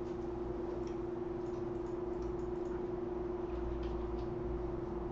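A steady hum at one pitch fills the room, with a few faint clicks from the laptop keys scattered over it.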